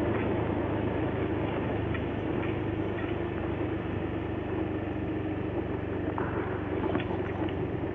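Motor scooter engine running steadily as it is ridden, an even hum with a few faint clicks near the end.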